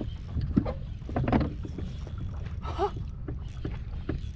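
Water lapping against a fishing kayak's hull under a steady low wind rumble, with scattered light clicks and knocks from the spinning rod and reel as a hooked fish is played.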